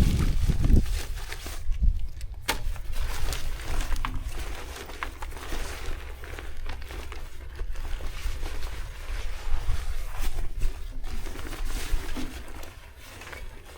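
Rustling and handling noise, with a few sharp clicks, over a steady low rumble of wind on the microphone.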